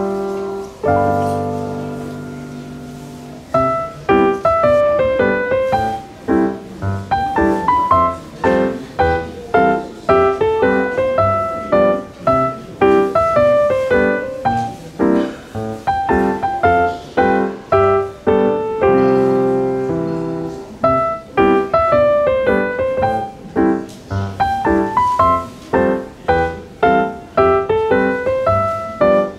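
Background piano music: quick runs of single struck notes that fade, with held chords about a second in and again about two-thirds of the way through.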